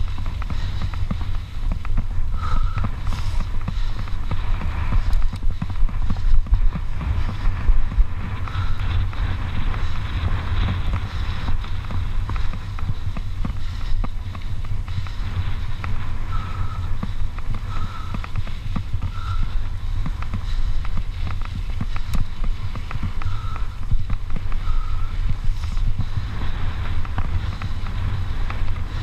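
Heavy wind buffeting on a GoPro's microphone as a mountain bike rides fast over a dry dirt road, with the tyres' rolling noise on the dirt. A few brief, faint squeaks come and go.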